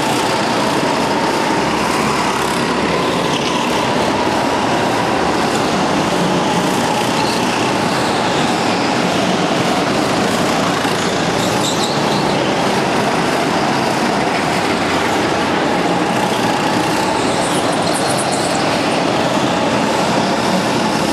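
Several go-kart engines running hard at high revs, a continuous din with a high whine that wavers in pitch as the karts lap the track. The sound fills an enclosed hall.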